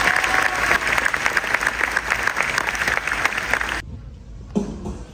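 An audience applauding, a dense patter of many hands clapping that cuts off abruptly about four seconds in.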